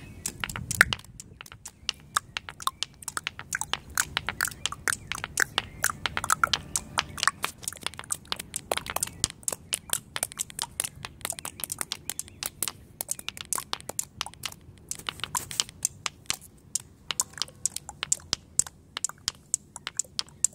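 Hard objects held in the hand tapped against a stone-paved floor by several people, a busy run of sharp clicks and knocks in overlapping rhythms.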